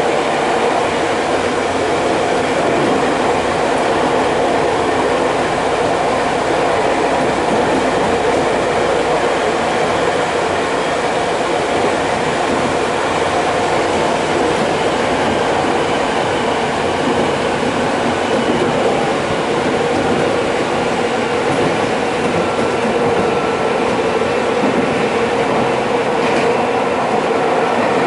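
Nagano Electric Railway local electric train running steadily along the line, heard from inside the car: a continuous rumble of wheels on rail and running gear.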